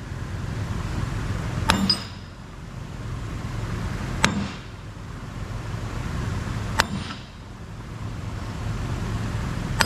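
Wooden-handled hammer striking a steel driver disc to tap a freezer-chilled bearing race into the bore of a final-drive gear as a press fit. Three sharp metallic clangs, each with a short ring, land about two and a half seconds apart over a steady low hum.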